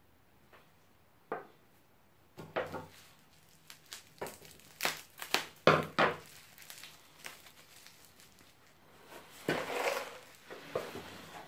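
Packing wrap crinkling and rustling in the hands in irregular bursts, busiest in the middle and again near the end, with a few sharp clicks.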